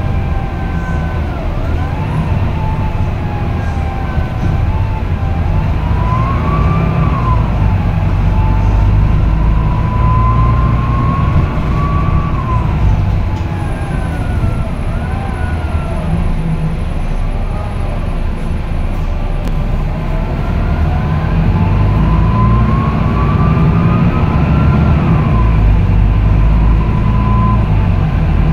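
Volvo B9TL double-decker bus heard from inside the passenger saloon while driving: its diesel engine gives a deep steady drone. Over it, whines from the Voith automatic gearbox and driveline rise and fall in pitch several times as the bus gathers speed and changes gear.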